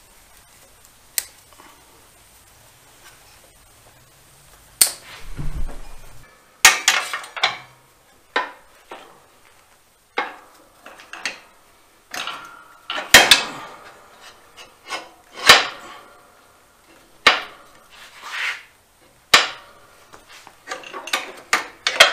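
A wrench clanking and clicking against the steel deck and belt idler arm of a zero-turn mower. The irregular sharp metallic knocks start about five seconds in, some of them loud.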